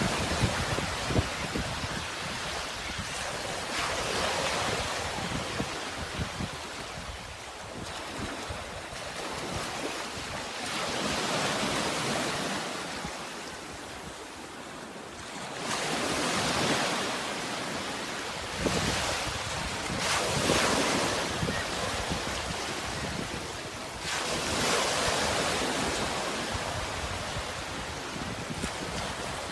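Sea waves breaking and washing in, in slow surges a few seconds apart, with wind rumbling on the microphone.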